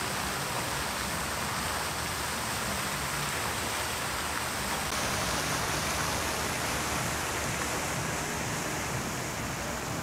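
A plaza fountain's water jet falling and splashing into its pool: a steady, even rush of water.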